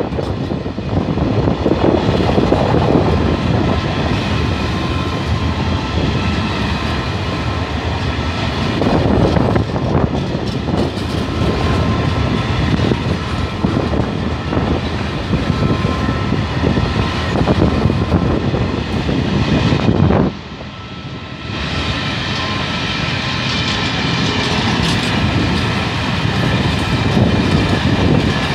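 Freight train wagons rolling past close by: a continuous rumble of steel wheels on the rails with irregular clicks and clatter. The wagons are flat wagons carrying tank containers, then covered hopper wagons. The sound dips briefly about twenty seconds in.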